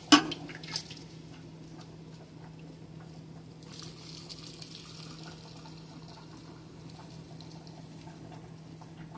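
Hot brine poured from a metal cup through a plastic canning funnel into a mason jar packed with pepper rings: a knock as the funnel is set on the jar, then a faint liquid trickle that is loudest about four seconds in.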